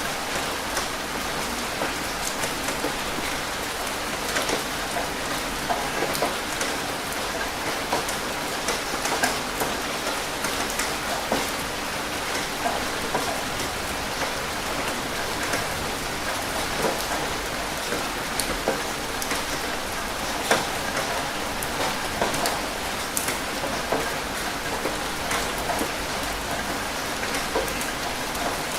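Steady rain falling on a surface, with many distinct drops pattering through an even hiss.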